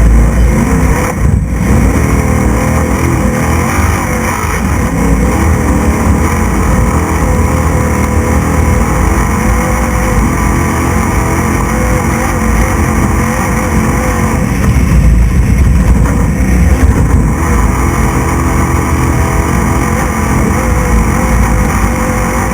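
Class 6100 desert race truck driven at race pace, heard from on board: the engine runs hard under continuous loud road and wind noise, with the revs rising and falling.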